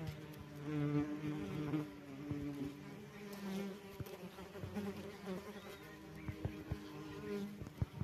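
Wasps buzzing in flight: several wing hums at slightly different pitches that come and go, with a few light ticks in the second half.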